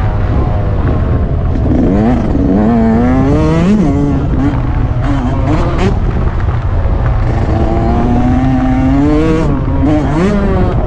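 Yamaha YZ125 single-cylinder two-stroke dirt bike engine heard from on board, revving up in rising sweeps and dropping back several times as it accelerates and backs off around the track, with wind buffeting the microphone.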